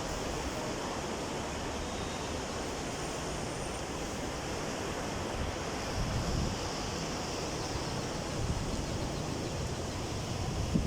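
Sea waves washing onto the shore in a steady surf, swelling slightly about six seconds in.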